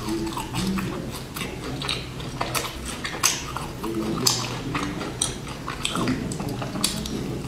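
Close-miked chewing of a crisp sesame-coated chocolate sandwich cookie, a run of short crunchy clicks, with another bite taken near the end.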